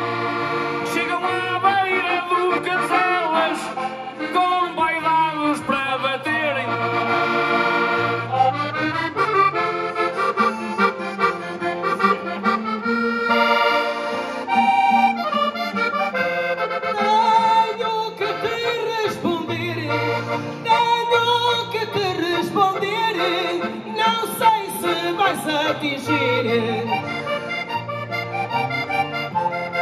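Two accordions playing a lively instrumental break of a Portuguese desgarrada, backed by strummed acoustic guitar, with no singing over it.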